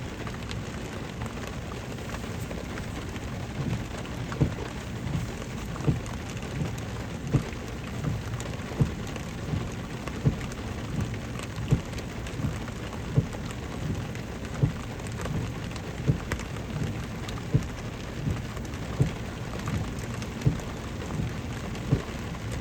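Rain falling steadily on a car. From a few seconds in, a low thump repeats evenly about every second and a half.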